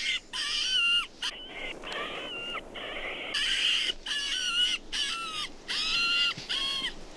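Electronic animal caller played through a small speaker: about ten short, high, squealing animal cries in quick succession, each bending in pitch.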